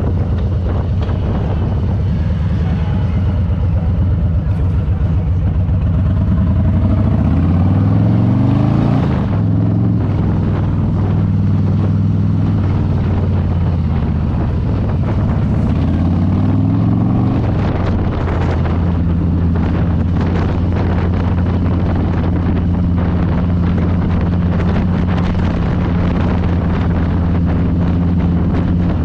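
2022 Harley-Davidson Low Rider S's Milwaukee-Eight 117 V-twin engine under way, rising in pitch as it accelerates twice in the first half, then dropping back and running at a steady speed for the last ten seconds or so, with some wind on the microphone.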